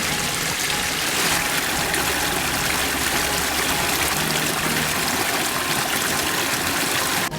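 Waterfall water rushing steadily, with a brief break just before the end.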